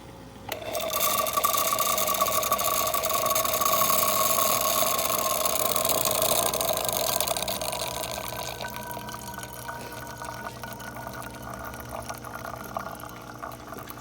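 Saeco Exprelia Evo super-automatic espresso machine dispensing hot water: its pump starts suddenly about half a second in and runs with a steady hum under the rush of water pouring from the spout. The sound is loudest for the first several seconds, then settles quieter.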